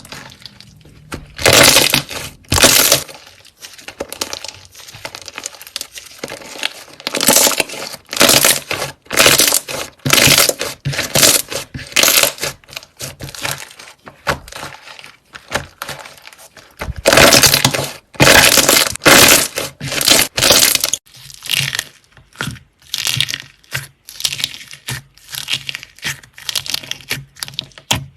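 Slime being squeezed and pressed by hand, giving irregular bursts of crackling and crunching with short pauses between.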